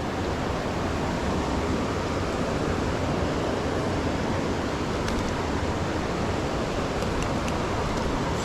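Creek water rushing steadily, an even continuous noise.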